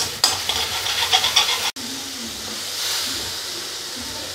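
A metal spatula scraping and stirring in a steel kadai of onion-and-spice masala frying in oil, about three or four strokes a second; after a break about a second and a half in, only the steady sizzle of the frying.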